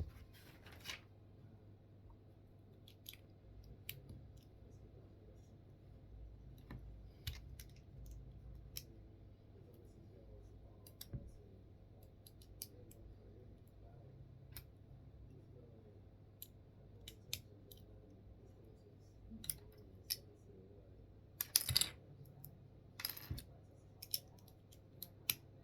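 Small plastic Lego bricks clicking and rattling as pieces are handled and pressed together, in scattered sharp clicks with a louder cluster near the end, over a low steady hum.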